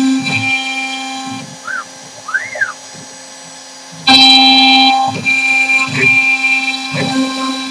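CNC router spindle running with a small end mill cutting a wooden turkey box call on a rotary fourth axis, a steady hum with low knocks about once a second. The cutting is loud at first, drops away for a couple of seconds while a motor whine rises and falls twice as the machine moves, and comes back loud about four seconds in.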